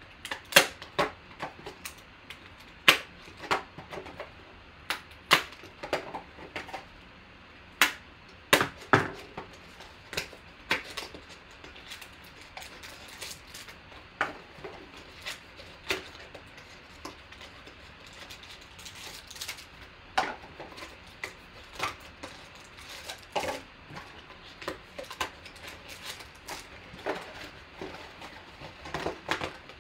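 Cardboard trading-card boxes and packs being cut open and handled, making a string of irregular sharp clicks and taps.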